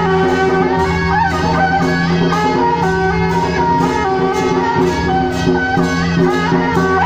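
Traditional Taiwanese temple procession music: a suona (reed horn) melody played over drum and cymbal beats.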